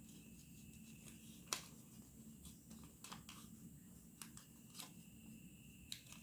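Origami paper being handled and creased: faint scattered crinkles and clicks, the sharpest about one and a half seconds in.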